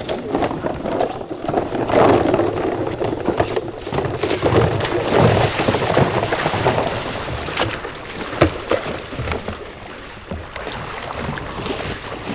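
Water sloshing and splashing as a person wades through shallow marsh water in waders, step after step, with a few sharp knocks about eight seconds in.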